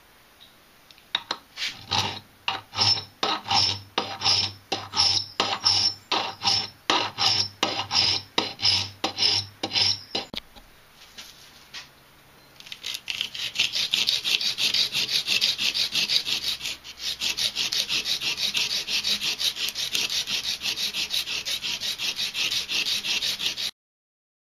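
A hand file rasping across the steel thread of a bolt clamped in a vise, about two to three strokes a second, smoothing the thread near its end. After a short pause, a strip of abrasive cloth is pulled rapidly back and forth around the bolt's thread, a faster, hissier rubbing that stops abruptly near the end.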